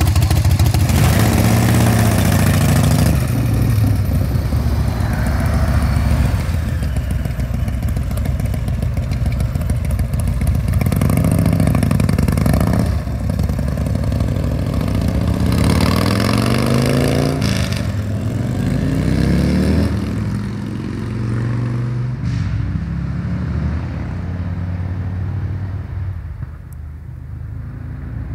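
1977 Harley-Davidson Electra Glide's carbureted shovelhead V-twin, built up to 93 cubic inches, running and being revved. It pulls away with rising sweeps as it goes up through the gears, then fades into the distance near the end.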